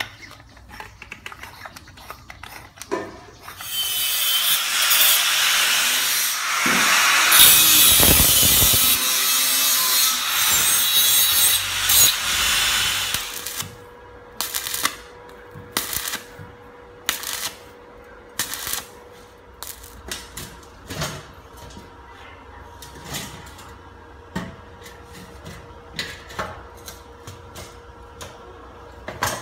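Electric arc welding on a steel gas cylinder: about ten seconds of loud, continuous crackling, then a string of short crackling bursts as the pipe is tack-welded on.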